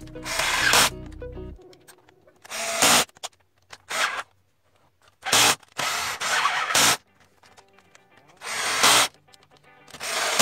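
Cordless drill with a socket bit running in short bursts, about seven in all, while backing out the bolts of a Briggs & Stratton engine's crankcase cover. Faint background music plays between the bursts.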